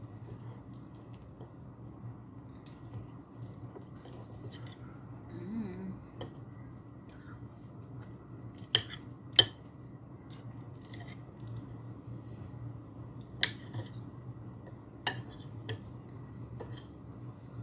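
Metal fork and spoon clinking and scraping against a ceramic plate while cutting up a boiled egg and scooping rice, with a few sharper clinks, the loudest two close together about nine seconds in. A steady low hum runs underneath.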